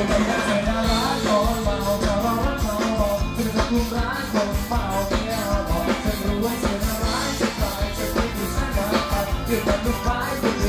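Live band music with a male singer singing into a microphone over a drum kit and electric guitars with a steady beat, amplified through a PA.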